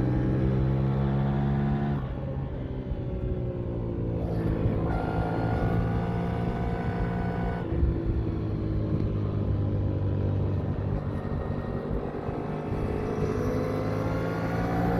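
Yamaha MT-07's parallel-twin engine running under way, its note changing abruptly about two, five and eight seconds in, then climbing in pitch toward the end.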